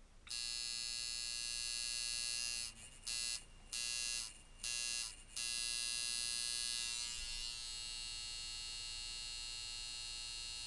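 Coil tattoo machine on a Micky Sharpz Contraption frame, fitted with custom tall-core coils, running at 5 volts as a medium-speed, medium-hit shader: a steady buzz. It stops and restarts several times in quick succession about a third of the way through, then runs on steadily, slightly quieter in the last few seconds.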